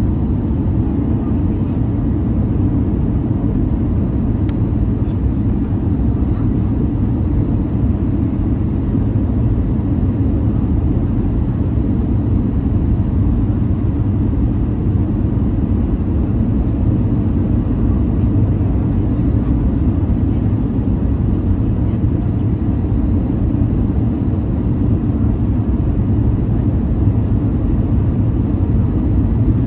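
Steady low rumble of an Airbus A320's engines and rushing airflow heard from inside the cabin while the jet descends to land.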